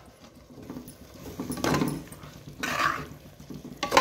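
Steel spoon stirring prawns into onion-tomato masala in a metal pot: a few scraping strokes against the pot, with a sharp clank near the end.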